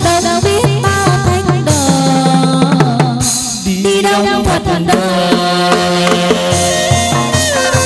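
Chầu văn ritual music for a hầu đồng spirit-medium dance: drum beats under a stepping melody on pitched instruments, which moves into longer held notes about halfway through.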